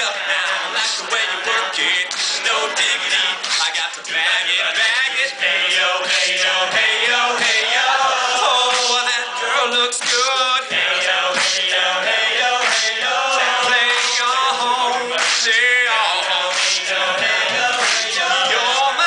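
All-male a cappella group singing in close harmony, with sharp percussive vocal clicks keeping a steady beat.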